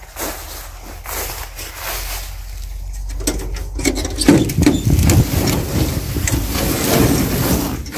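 Rustling, scraping and knocking as a polycarbonate greenhouse is being closed up by hand, turning louder and denser about halfway through.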